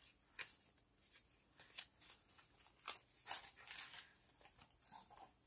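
Faint rustling and light taps of handmade paper note cards and envelopes being handled and shuffled, a string of short, irregular paper sounds.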